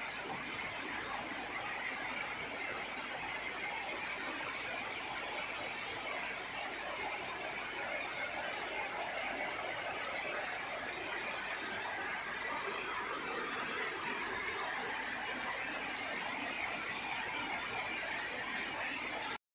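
Steady rain, an even hiss with a faint high squealing band running through it, cutting off abruptly at the very end.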